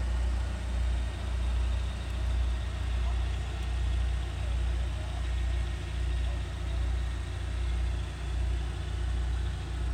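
Tractor engine running at idle: a low, steady rumble that swells and fades evenly, about every two-thirds of a second.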